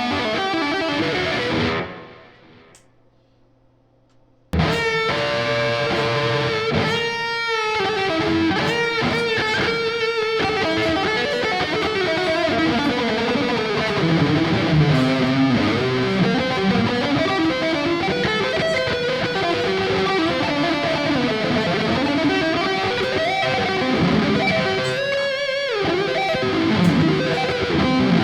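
Ibanez AZ24S electric guitar being played with a plucked and strummed riff. The playing dies away about two seconds in, pauses for about two seconds, then starts again abruptly.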